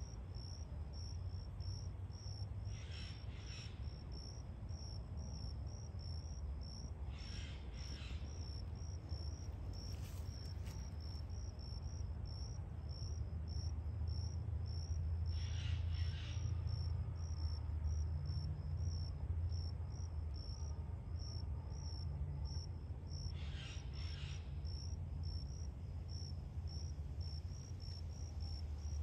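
An insect chirping steadily at a high pitch, about two chirps a second, over a steady low rumble, with four brief double sounds.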